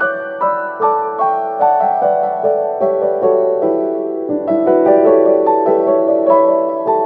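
Background music: a gentle piano melody of struck notes, about two or three a second, over a held lower note.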